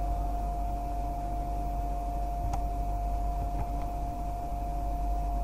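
Steady background hum and hiss with a constant whine running through it, and one faint click about two and a half seconds in.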